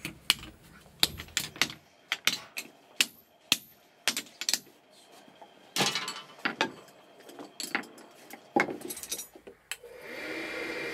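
Hand hammers striking hot iron on a steel anvil block in sharp, irregular blows with a metallic ring, as an axe head is forged. Near the end the blows stop and a steady whir of the forge's air blower takes over.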